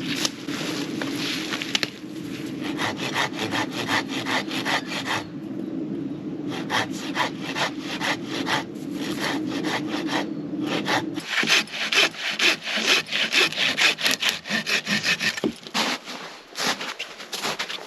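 Wood being cut with a hand saw: quick, even back-and-forth strokes, about three or four a second, with a short pause about five seconds in. The strokes grow louder about eleven seconds in.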